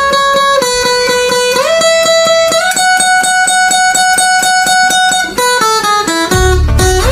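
Background music: a guitar picking one note rapidly over and over, the pitch sliding up a step twice. Near the end a deep bass comes in and the notes start to move about.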